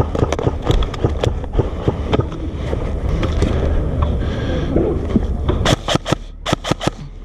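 Rummaging through a dump pouch for magazines: gear rustling and rattling close to a body-worn camera microphone, over a low rumble of handling noise. Near the end comes a quick run of sharp clicks.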